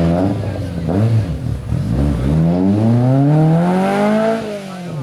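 Historic rally car's engine at full throttle: a couple of short revs rising and falling, then one long climb in pitch as it accelerates hard, dropping back near the end as it shifts up a gear and starts to climb again.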